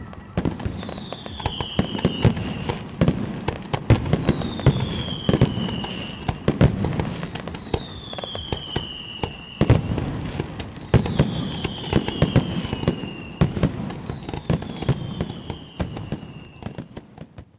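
A fireworks display: rapid bangs and crackles, with a high whistle falling in pitch about every three seconds, five times in all. The sound fades out near the end.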